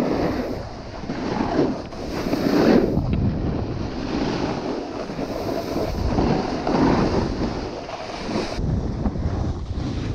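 Snowboard sliding and carving over snow, the board's edge scraping in swells that rise and fade every second or two, with wind buffeting the microphone.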